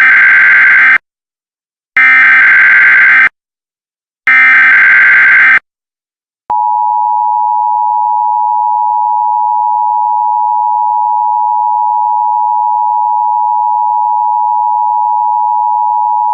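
Emergency Alert System tones: three harsh, buzzy bursts of the SAME digital header, each a little over a second long. After a short pause, the steady two-tone EAS attention signal starts and holds.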